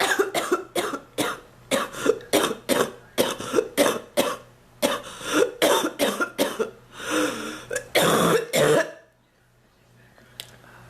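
A woman's long coughing fit: a rapid run of short coughs, about two or three a second, with the last few longer and harsher. The fit stops after about nine seconds.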